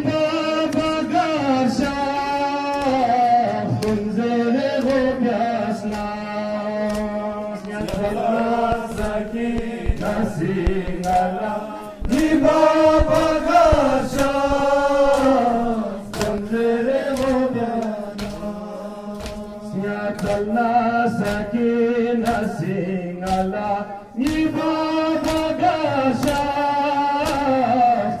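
Men chanting a Balti noha, a Muharram mourning lament, in unison with long held, sliding vocal lines. Throughout it runs a regular beat of sharp slaps from hands striking chests (matam).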